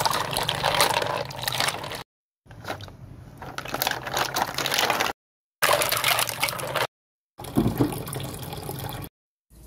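Freshwater clams being washed by hand in a basin: water sloshing and splashing, with the shells knocking together. It comes in four short stretches, each cut off abruptly.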